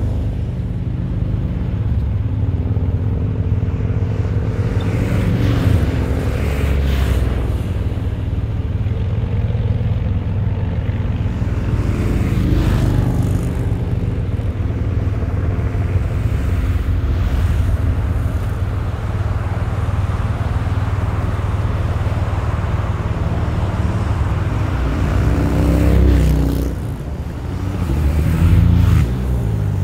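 Procession of police motorcycles approaching, their engines coming closer, with one passing close near the end, its engine note sliding as it goes by. All of this sits over a steady low rumble.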